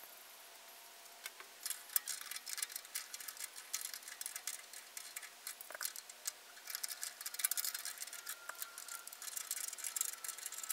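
Wrench turning a stuck nut on a bolt: rapid, irregular metal clicking that starts about a second in.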